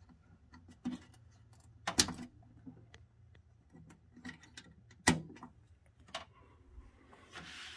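Scattered clicks and snaps of a stereo receiver's spring-clip antenna terminals as a thin antenna wire is pushed in and pulled out, with two sharper clicks about two and five seconds in. A soft rustle of handling follows near the end.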